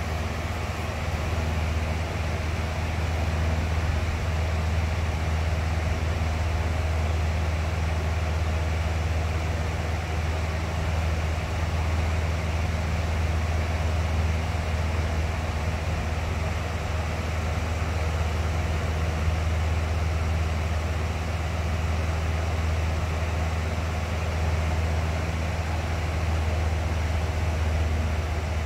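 Box fan running steadily: a constant whooshing rush of air with a deep low hum from the motor and blades, unchanging throughout.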